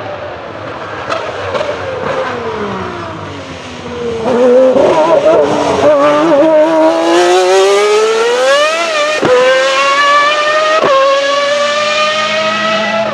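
1995 Ferrari 412 T2 Formula 1 car's 3.0-litre V12 passing close: the revs fall as it slows for the corner, waver unevenly at the loudest point, then climb hard on the way out with two sharp upshifts in the second half.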